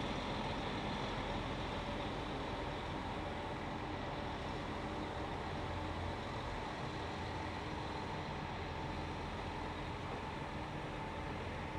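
Steady running hum of electric trains, with a few faint steady whine tones, easing off slightly near the end. A 789 series electric multiple unit stands close by while another train moves past behind it.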